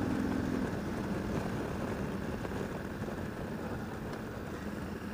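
Motorcycle engine running while riding, over a steady rush of noise. Its note fades under a second in, and the overall sound eases slightly.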